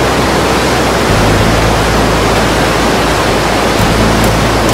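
Hot air balloon's propane burner firing: a loud, steady rushing hiss, with a low hum beneath it.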